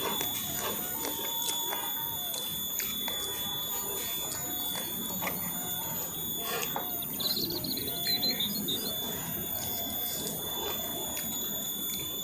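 Metal spoons scraping and clicking against a plastic-wrapped tray, with close chewing and mouth sounds of eating ketoprak. A steady high-pitched whine runs behind it.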